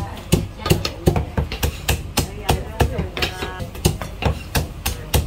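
Chinese cleaver chopping through a poached chicken onto a thick wooden chopping block, in steady sharp strokes of about three a second. Voices can be heard faintly in the middle of it.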